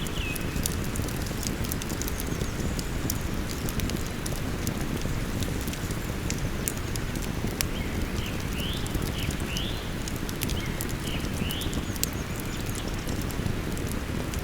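Campfire wood crackling with frequent small pops over the steady rush of a river. A small songbird sings short chirping phrases with rising notes, briefly near the start and again through the middle of the stretch.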